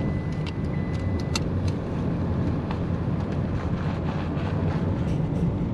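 Car running on the road, its engine and tyre noise a steady low rumble heard inside the cabin. A few light clicks and rattles sound over it, the sharpest about one and a half seconds in, where a faint high whine also cuts off.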